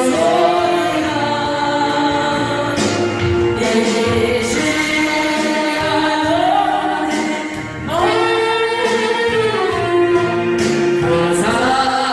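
Voices singing a Christian gospel hymn in long held notes, phrase after phrase, with a short breath-like dip in level shortly before a new phrase begins about eight seconds in.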